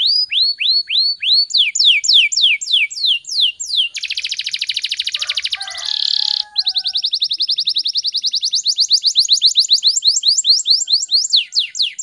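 Domestic canary singing a fast, dense song: phrases of quick downward-sliding whistles, a very fast buzzy trill in the middle, then a long run of rapid repeated notes that slows into a few slurred whistles near the end.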